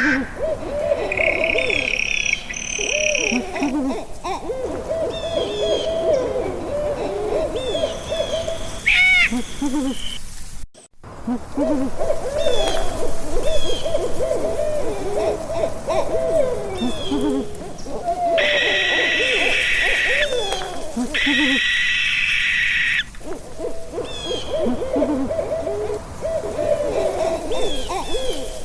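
Owls hooting over and over, many low calls overlapping one another. A harsher, higher call of about two seconds breaks in three times, and faint short chirps sound in the background. The sound drops out briefly about eleven seconds in.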